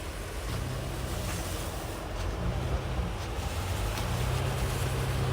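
Ford Raptor pickup truck driving through snow, its engine running with a steady low drone that grows gradually louder.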